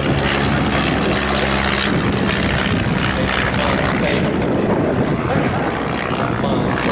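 De Havilland Tiger Moth biplane flying overhead, its four-cylinder inline engine and propeller giving a steady drone that turns rougher and noisier after about two seconds.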